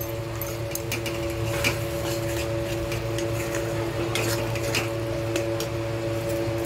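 Metal spatula scraping and clicking against a metal kadai as chopped tomatoes are stirred into a masala paste, in scattered strokes over a steady hum.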